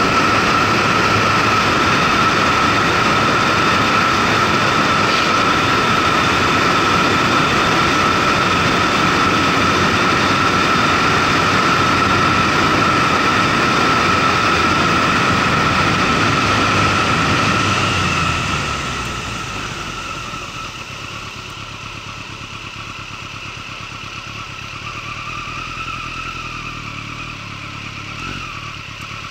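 Motorcycle riding along at steady speed: engine and a steady rush of wind, with a constant whine. About two-thirds of the way through it slows down and the sound drops and stays quieter.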